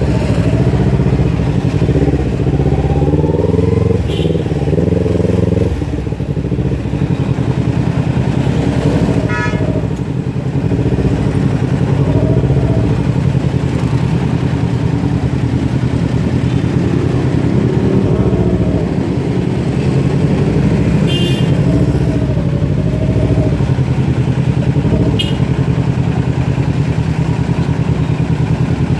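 Kawasaki Ninja 250 FI parallel-twin engine running loud through a Scorpion full-system exhaust with the dB killer removed, its pitch rising and falling several times as it revs. A few brief high chirps sound over it.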